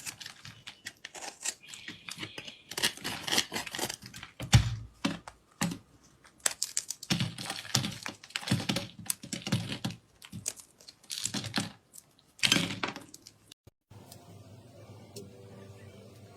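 Slime being squeezed, stretched and poked by hand, making dense runs of crackling clicks and sticky pops. The crackling stops about fourteen seconds in, leaving a faint steady hum.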